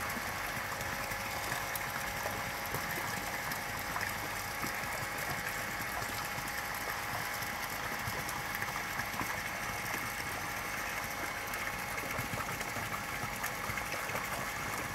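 Steady trickle of water running in a garden pond, with a faint even hum under it.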